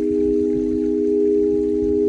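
Crystal singing bowls holding several steady, overlapping tones, with one tone swelling in just after the start, over a soft irregular patter underneath.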